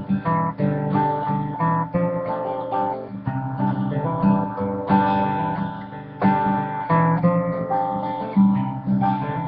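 Acoustic guitar played alone in an instrumental break of an Americana folk song, a steady run of picked and strummed chords with no singing.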